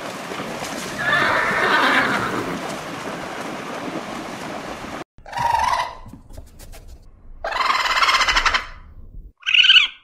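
A horse neighs over a steady rushing background, the whinny loudest about a second or two in. The sound cuts off abruptly about halfway through, and three short pitched calls follow in the second half.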